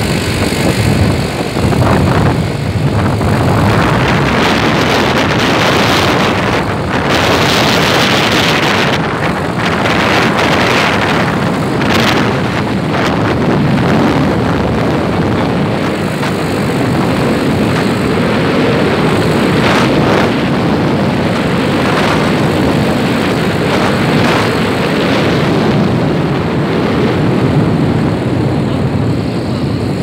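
Steady rush of wind on the microphone mixed with the drone of a running vehicle, heard from a moving vehicle, swelling and easing a little without a break.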